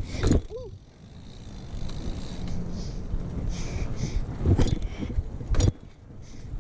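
BMX bike rolling on asphalt: a steady low rumble of tyres and wind on the microphone, with a few sharp knocks from the bike about four and a half and five and a half seconds in.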